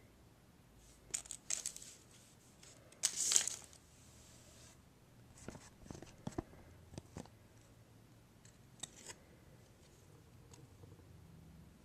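Trading cards and their wrapper being handled: a few short rustles, one louder tearing crinkle about three seconds in, then scattered light clicks as the cards are moved.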